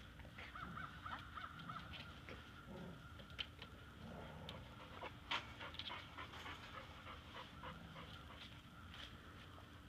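Dog panting and softly whining, with a few light taps and clicks; the sharpest click comes about five seconds in.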